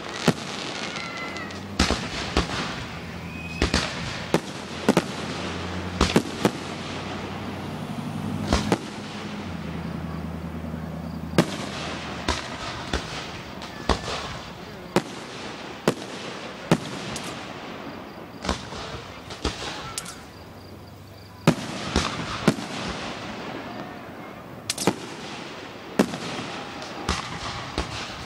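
Aerial fireworks display: shells launching and bursting in an irregular string of sharp bangs, one or two a second, a few much louder than the rest.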